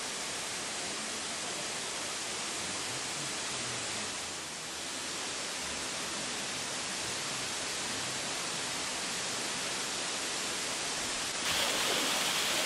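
Steady rushing of water, even and hiss-like, which turns louder and brighter about eleven and a half seconds in.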